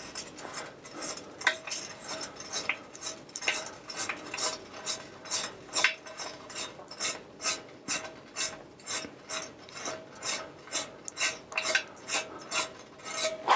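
A hand tool turning a threaded part on a 30-year-old mountain bike frame: rhythmic clicking with gritty scraping, about two strokes a second.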